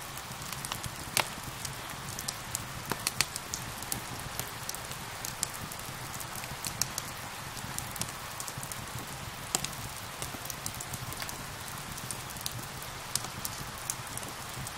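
Steady rain mixed with a fireplace fire crackling: sharp, irregular pops and snaps, several a second, over an even hiss of rain.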